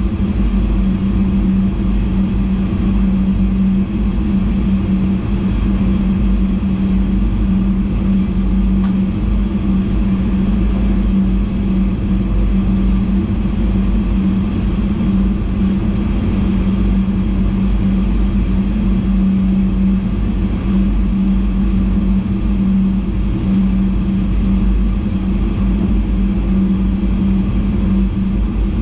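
VIRM double-deck electric intercity train running at speed, heard from inside the driver's cab: a steady low rumble of wheels on rail with a constant hum.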